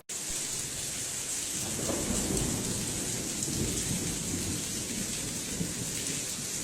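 Steady heavy rain: a constant hiss with a low rumble underneath.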